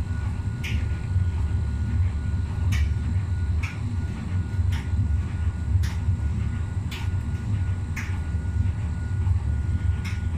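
Miele W Classic WDA 111 Eco front-loading washing machine running a wash with duvets in the drum: a steady low rumble from the turning drum, with a soft swish or knock roughly once a second as the load tumbles.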